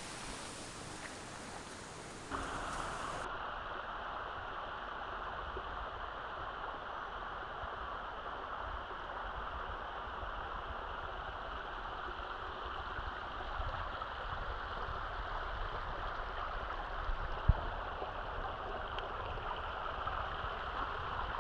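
Steady rush of running water from a jungle stream or waterfall, stepping up louder a little over two seconds in. A single dull bump about two-thirds of the way through.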